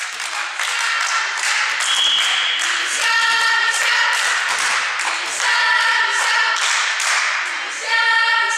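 Rhythmic clapping with a group of high-pitched girls' voices chanting together, a volleyball team cheer between points. A short high whistle-like tone sounds about two seconds in.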